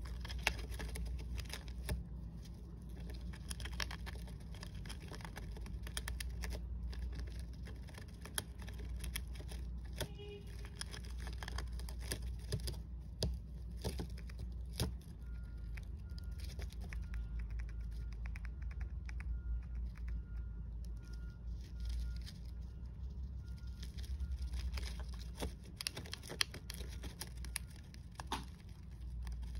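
Hamster busy in its wood-shaving and paper bedding: rapid, irregular small clicks, crackles and rustles over a steady low hum.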